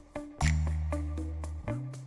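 Instrumental music with a quick, regular beat of sharp ticks over held bass notes. A long low bass note sounds from about half a second in until near the end.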